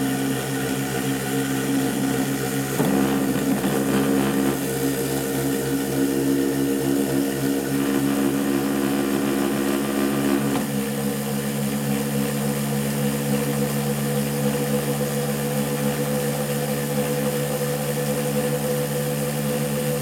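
A 2-inch magnet rotor spinning at high speed on its shaft bearings above its drive coil, giving a steady hum of several tones. The mix of tones shifts about ten and a half seconds in.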